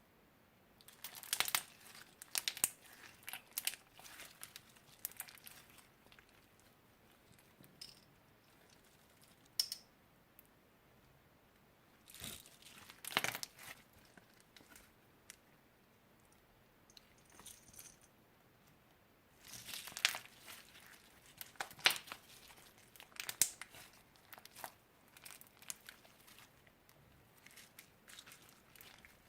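Crinkling and crackling from slime-making materials being handled, in three bursts of quick clicks separated by quiet pauses.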